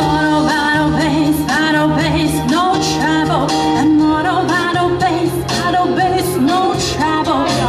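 Live band playing a song over a PA: a woman singing over electric guitar and keyboard, with a steady beat.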